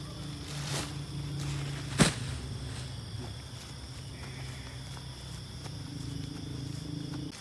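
Crickets chirring over a steady low hum, broken about two seconds in by a sharp thud, the loudest sound, with a softer knock just before it.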